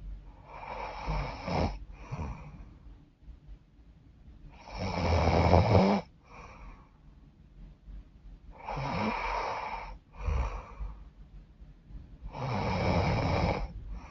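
A woman snoring in her sleep through a stuffy, runny nose. A loud rattling snore comes on each breath in, about every four seconds, four times, and most are followed by a short, quieter breath out.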